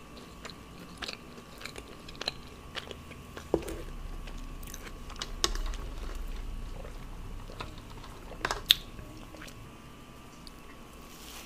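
Close-miked eating: chewing a soft chocolate cookie, with wet mouth sounds and scattered sharp clicks over a faint steady hum. The loudest is one sharp click about three quarters of the way through.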